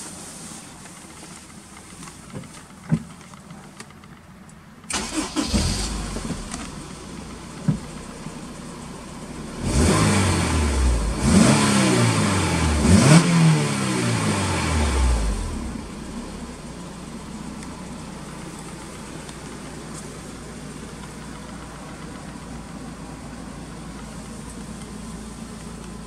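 Honda S2000 AP1's F20C 2.0-litre four-cylinder engine, heard from inside the cabin, starting about five seconds in and settling to idle. It is revved up and down about three times in quick succession, then drops back to a steady idle. A couple of clicks come before the start.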